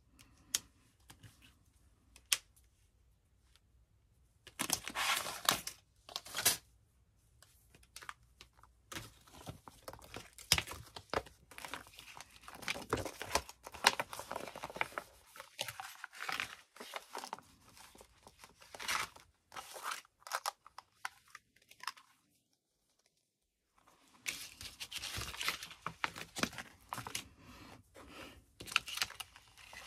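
Storage pouches and envelopes rustling and crinkling in irregular bursts as cutting dies are handled and slipped into them, with a short pause about three-quarters of the way through.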